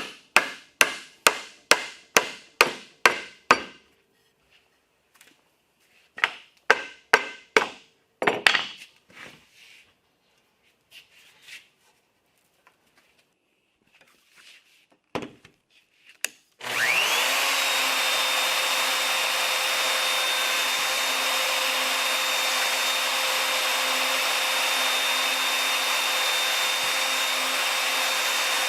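A quick run of sharp taps on wood, about two or three a second, then a second shorter run ending in a heavier knock. About two thirds of the way through, a power tool spins up and runs steadily with an even whine.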